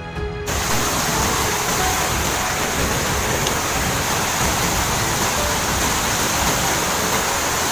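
Muddy flash-flood water rushing in a steady, loud torrent through a swollen river channel. It starts about half a second in.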